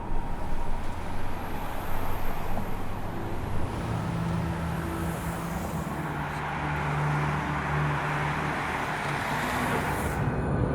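Motor vehicle engine and road noise, with a steady low hum that grows louder about halfway through.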